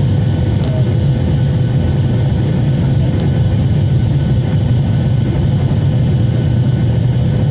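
Steady low rumble of a Boeing 737's jet engines and airflow heard inside the passenger cabin, with a faint steady tone above it.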